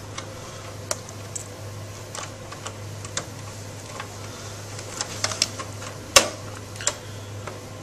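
T10 Torx screwdriver driving a small screw into the power analyzer's sheet-metal chassis: scattered light clicks and ticks of the tool working the screw, with a sharper click about six seconds in.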